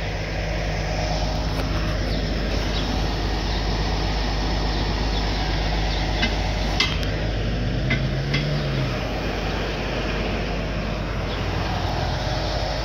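Heavy-duty tow truck's diesel engine running steadily, with a few sharp metallic clicks around the middle and a brief low tone that rises and falls about eight seconds in.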